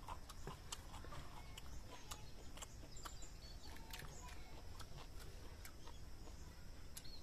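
Faint background of scattered light clicks and ticks, with a few short high bird chirps over a low steady rumble.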